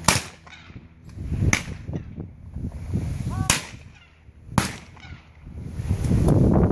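Shotgun shots at clay targets on a trap range: one loud, close shot right at the start, then three fainter shots over the next five seconds, each one to two seconds apart. A low rumbling noise builds near the end.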